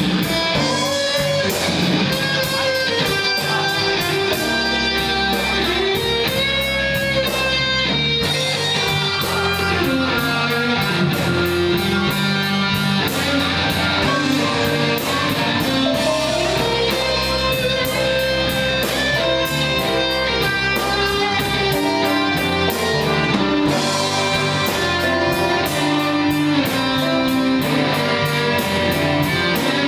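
A blues band playing live: electric guitar leading over bass and drums, with a steady beat throughout.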